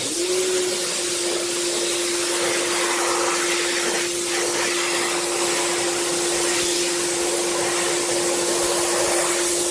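Electric pressure washer switched on: its motor and pump hum rises briefly as it spins up, then runs at a steady pitch under the loud, even hiss of the water jet.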